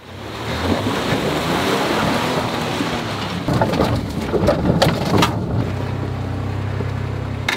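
Truck driving up a rough, overgrown bush trail: engine running under a dense wash of noise, with a cluster of sharp knocks and rattles in the middle, most likely brush scraping along the body and the truck jolting over the track. For the last couple of seconds a steady low engine drone comes through.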